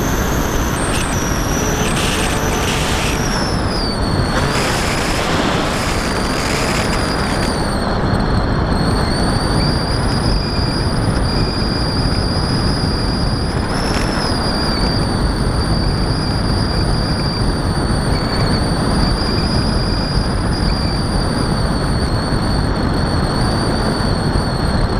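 Onboard sound of a Lanyu Raptor electric RC plane in flight: the Turnigy brushless motor and propeller whining steadily over loud wind rush on the camera. The whine dips and wavers in pitch between about four and eight seconds in, then holds level.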